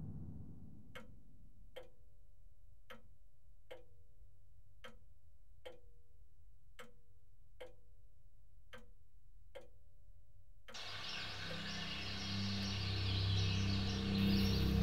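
Mantel clock ticking, about one tick a second in an uneven tick-tock rhythm. About two-thirds of the way through the ticking cuts off and a low droning score with outdoor rustle and hiss fades up.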